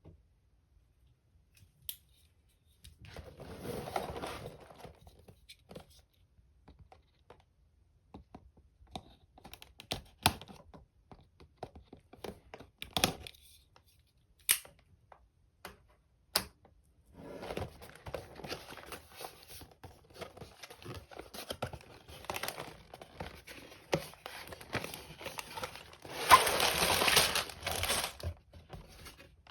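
LEGO set packaging being torn open and crinkled, with separate sharp clicks and taps in between. The longest and loudest crinkling comes in the last third.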